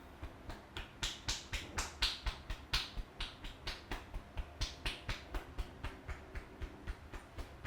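Rhythmic slapping strikes of a barber's percussive hand massage, about three to four a second, starting just after the beginning and varying in strength.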